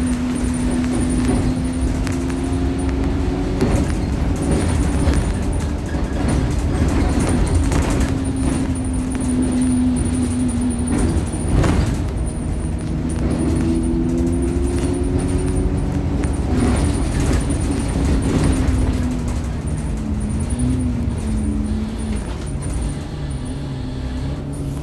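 Bus running along a road, heard from inside: engine and drivetrain hum with a tone that slowly rises and falls in pitch as the bus speeds up and slows, over road rumble, with a few sharp clicks and knocks.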